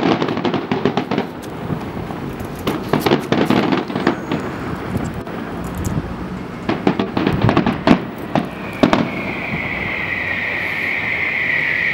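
Fireworks bursting and crackling in quick succession, many sharp bangs close together. About three-quarters of the way in the bangs give way to a steady, high-pitched hiss that grows louder.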